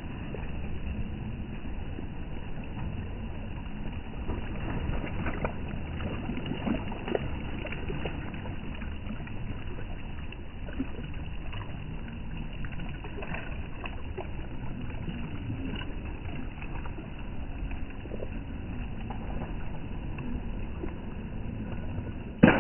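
Steady wash of small sea waves lapping against a stone pier, with wind rumbling on the microphone. Right at the end, a sudden loud splash as a diver hits the water.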